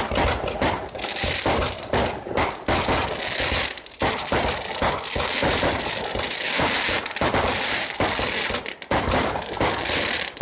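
Fireworks going off in a rapid, near-continuous string of bangs and crackles, with many shells bursting close together.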